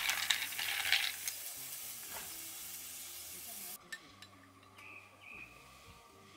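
A long bar spoon stirring ice in a glass mug of whisky highball: a quick run of clinks and scrapes over about the first second, over a steady fizzing hiss. The hiss cuts off suddenly a little before four seconds, leaving a quieter stretch with a few faint clicks.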